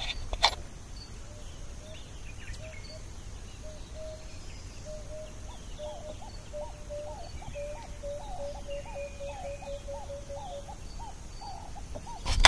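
Birds calling: a series of short, low whistled notes repeated faster and faster, with higher chirps scattered over them, above a low background rumble. A sharp knock comes just before the end.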